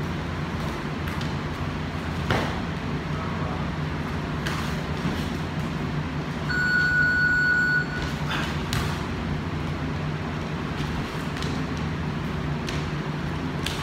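Two men sparring on a gym mat: scattered short knocks and footfalls over a steady hum. About halfway through, an electronic beep lasting about a second is the loudest sound.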